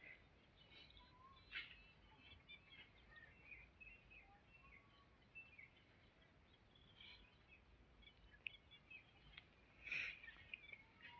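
Faint outdoor ambience with birds chirping: scattered short high calls and a few brief whistled notes, with a louder burst of calls about ten seconds in.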